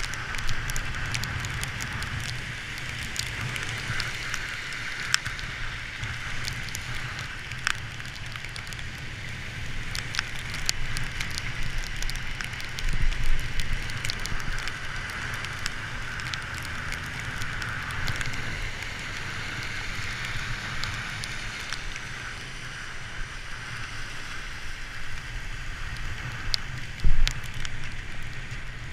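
Bicycle tyres hissing on rain-soaked pavement, with raindrops ticking against the camera and wind rumbling on the microphone. A sharper knock stands out near the end.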